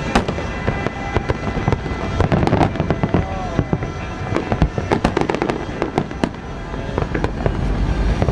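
Aerial fireworks shells bursting: a dense, irregular run of sharp cracks and bangs over a continuous low rumble.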